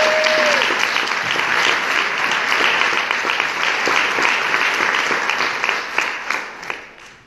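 Audience applauding, with one held whoop at the start; the clapping thins out and fades away near the end.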